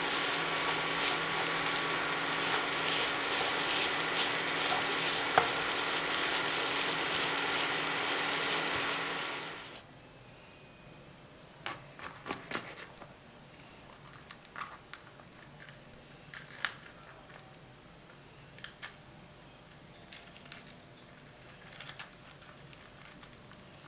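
Mackerel and mashed-potato mixture sizzling in a frying pan as it is stirred with a wooden spatula; the sizzle cuts off suddenly about ten seconds in. Then it is much quieter, with scattered light clicks and taps of a knife slitting Anaheim peppers and scraping out their seeds on a wooden cutting board.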